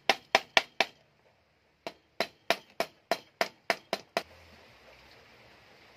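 Claw hammer striking metal on a bicycle frame's head tube, where a stainless steel patch is being fitted. Two runs of quick, sharp blows come about three a second, with a pause of about a second early on, and they stop a little after four seconds.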